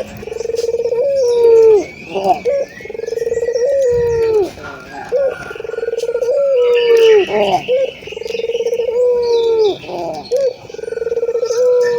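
A puter (Barbary dove) cooing in repeated phrases, about five in all, one every two and a half seconds or so. Each phrase is a low pulsing held note that ends in a short rising-then-falling slur. A fainter higher chirping joins about seven seconds in.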